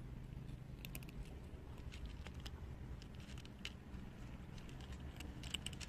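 Two cats chewing dry kibble: faint, irregular crunches and clicks over a low steady rumble.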